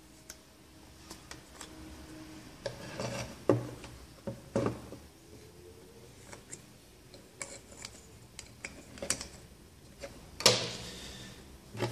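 Camera gear being handled: a lens twisted off a Fujifilm X-T1's bayonet mount and plastic lens caps pulled off and set down, with scattered rubbing, small clicks and light knocks on a wooden table. The sharpest knocks come about three and a half, four and a half, and ten and a half seconds in.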